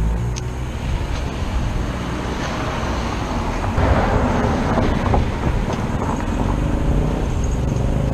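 Street traffic: a motor vehicle's engine running steadily nearby, with road noise that swells louder about four seconds in.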